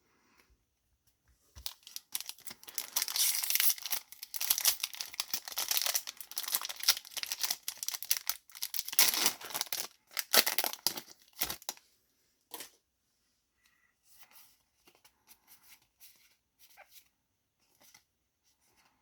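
Foil booster pack wrapper being torn open and crinkled: a dense crackling rustle for several seconds that stops about twelve seconds in, followed by a few faint soft handling sounds.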